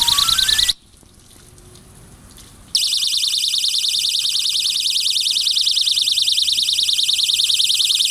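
Solar-powered animal repeller's speakers sounding a loud, fast-warbling, high-pitched alarm tone, with a faint rising series of stepped beeps under it at first. It cuts off under a second in and starts again about two seconds later.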